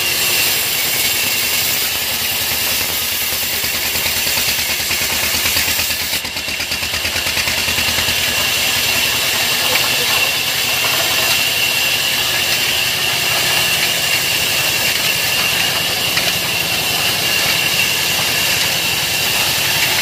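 Old stationary diesel engine running steadily, driving a belt-driven band saw while a log is fed through the blade, with a steady high whine over the engine's even beat.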